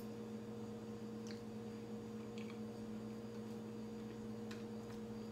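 A steady electrical hum from kitchen appliances, with a few faint light clicks of a fork against a plate while eating.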